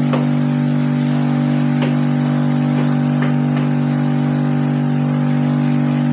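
Homemade wooden grass chopper driven by a 125-watt electric motor, running steadily with no grass being fed: a steady hum with a few faint ticks.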